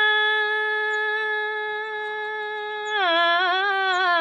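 A woman singing a nyoli, a Kumaoni folk song, with no accompaniment. She holds one long, steady note, then drops to a lower pitch about three seconds in, with small wavering ornaments.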